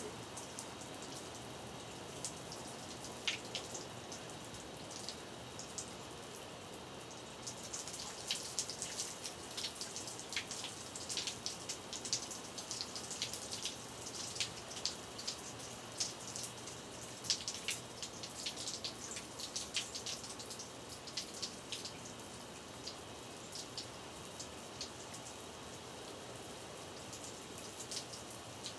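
Steady hiss of a running shower, with many irregular small sharp clicks and crackles, thickest through the middle stretch.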